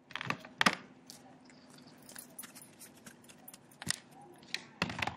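Light handling sounds on a tabletop: a few sharp taps and knocks, with small crackling ticks of a folded paper coffee filter being pressed and moved between them.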